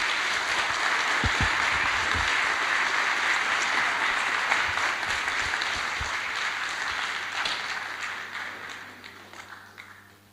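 Auditorium audience applauding at the end of a lecture: a dense, steady clapping that dies away over the last few seconds.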